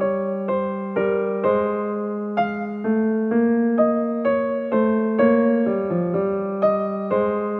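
Background music: gentle piano playing a slow melody, a new note about every half second over held low notes.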